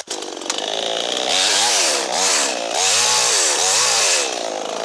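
Gasoline chainsaw running, its engine revving up and down again and again, with stretches held at high revs.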